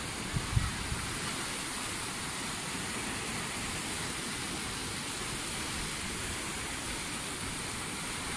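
Steady rushing sound of sea surf and wind, with a couple of brief low thumps about half a second in.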